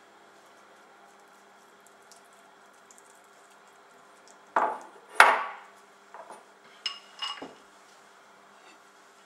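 Kitchenware knocking together: two sharp clinks about halfway through, the second the loudest and ringing briefly, then a few lighter clicks and taps as the glass baking dish and sauce bowl are handled.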